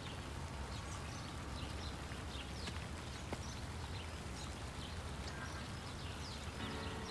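Quiet outdoor ambience: a steady low rumble with scattered faint bird chirps. Soft music tones come in shortly before the end.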